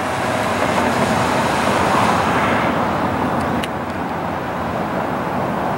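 Road traffic: tyre and engine noise of cars passing on a multi-lane road, swelling as one goes by about two seconds in, then easing off.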